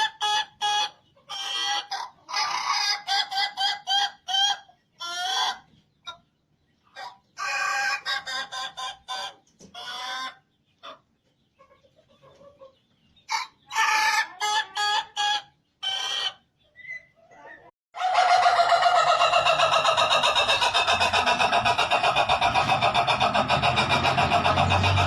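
Ayam Ketawa rooster crowing its rapid, stuttering laughing crow, in several bursts with short gaps. About eighteen seconds in, a steady, dense continuous sound with a low hum abruptly takes over.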